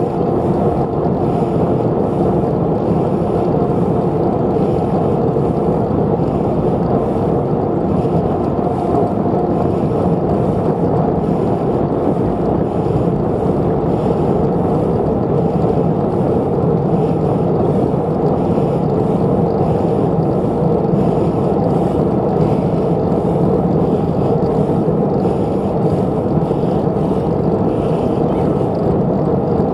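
Steady rushing rumble of wind on the microphone and tyre noise from a moving bicycle.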